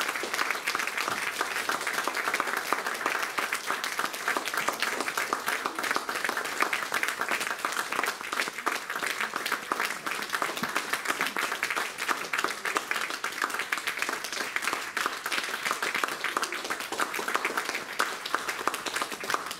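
Audience applauding: many hands clapping at an even, sustained level.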